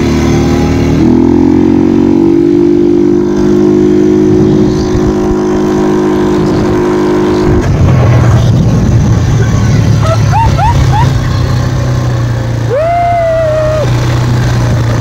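Small off-road vehicle engine running steadily under way over desert sand. Its pitch drops and settles lower a little past halfway, and short rising-and-falling cries sound near the end.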